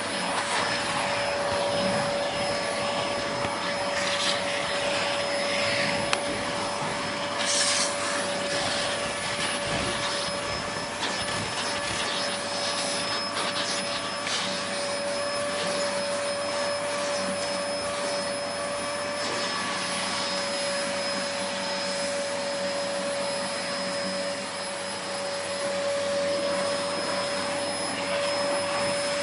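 Vacuum cleaner running steadily: a constant rushing hiss with a steady whine from the motor.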